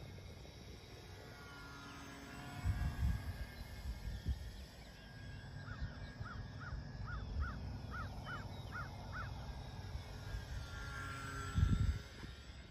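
A bird calling outdoors, a quick run of about nine short, evenly spaced calls in the middle, over low rumbles, the loudest near the end.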